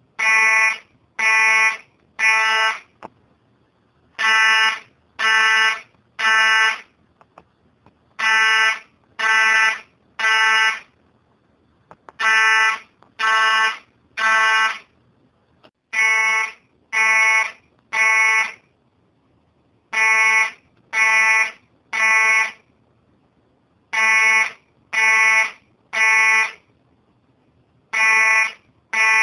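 Fire alarm sounding the temporal-three evacuation signal: three buzzy half-second beeps, then a pause of about a second and a half, the cycle repeating every four seconds.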